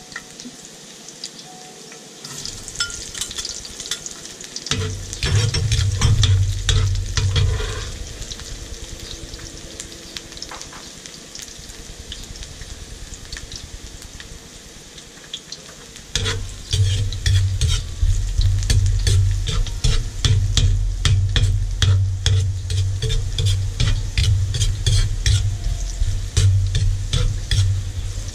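Oil sizzling in a metal wok as a metal ladle stirs and scrapes sliced aromatics, with frequent sharp clinks of the ladle against the wok. A loud low rumble joins in from about 5 to 8 seconds and again from about 16 seconds on.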